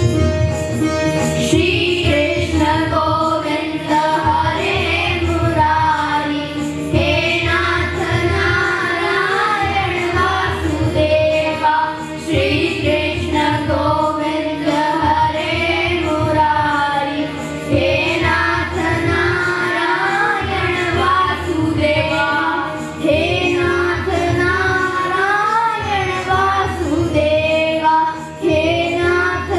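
A group of children singing a Hindi song together into microphones, over instrumental music accompaniment.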